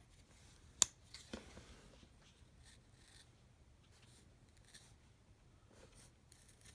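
A sharp click about a second in and a second, softer one just after, then faint, short scraping strokes of a small pocket-knife blade drawn across skin to shave hair, testing the edge.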